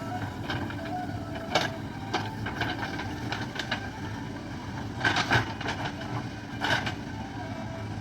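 JCB backhoe loader's diesel engine running steadily, with sharp metallic clanks and knocks from the digging work, about a second and a half in and again around five and nearly seven seconds in.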